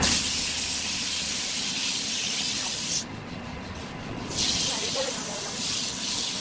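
Sandpaper pressed by hand against a large wooden workpiece spinning on a lathe, making a steady hiss. The hiss drops away for about a second and a half around the middle, when the paper is lifted and refolded, then starts again.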